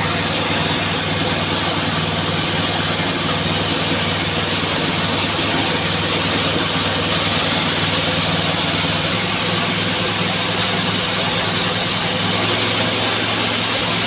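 Horizontal sawmill saw running steadily, driven by a 25 HP electric motor: a constant low hum under a dense, loud rushing noise.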